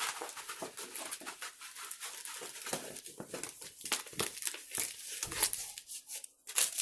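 Stiff, nylon-like diamond-painting canvas crinkling and crackling in quick irregular bursts as it is handled and rolled by hand.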